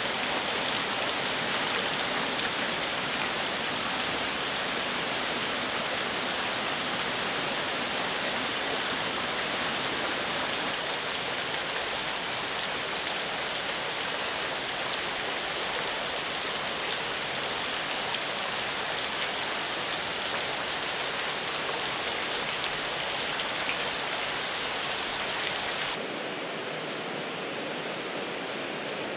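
Water jets from inflow pipes splashing steadily into fish-rearing tanks, a continuous rushing hiss. Near the end the sound drops a little and turns duller.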